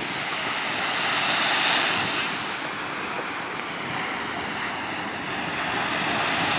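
Small surf waves washing onto a sandy beach: a steady rush of water that swells about a second or two in and again near the end.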